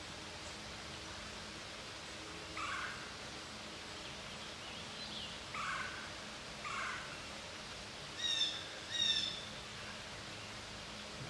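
Birds calling over a steady outdoor hiss: three short, falling calls a few seconds apart, then two louder calls about a second apart near the end.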